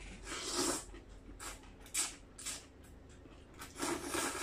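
A person slurping rice vermicelli noodles eaten by hand and sucking noodles off the fingers: a string of short, breathy slurps with pauses between them, the biggest about half a second in and near the end.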